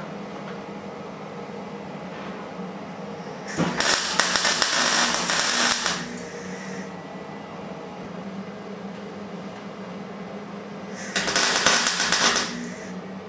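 Wire-feed (MIG) welder laying short tack welds on a sheet-metal electrics tray in a motorcycle frame: two bursts of crackling arc, one of about two and a half seconds a few seconds in and a shorter one near the end, over a steady low hum.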